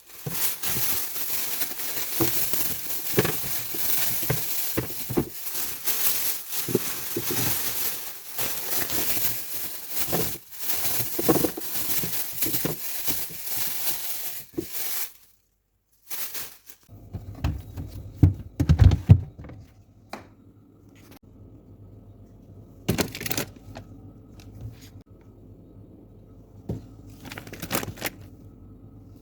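Plastic packaging crinkling and rustling with many small clicks as groceries are handled for a fridge restock; after a short pause it changes to a faint steady low hum with a heavy knock and a few lighter clicks.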